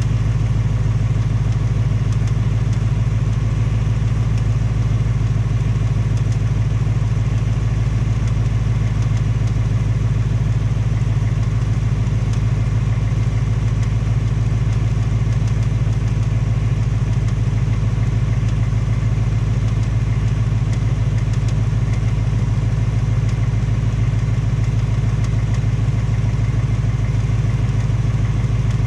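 2018 Mustang GT's 5.0 Coyote V8 idling steadily with a light tapping/knocking in its running, which the owner takes for the Coyote 'BBQ tick' or piston slap on this second, low-mileage engine.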